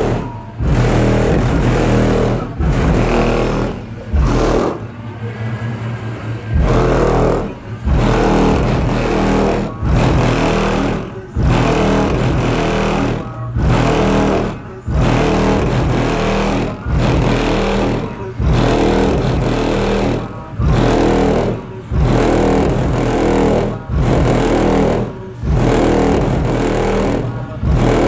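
Bass-heavy music played very loud through three Sundown SV3 15-inch subwoofers on a CT Sounds 10K amplifier, heard from outside the truck, its beat pulsing about once a second with the low bass easing off briefly about five seconds in. The bass rattles the Chevy K5 Blazer's body.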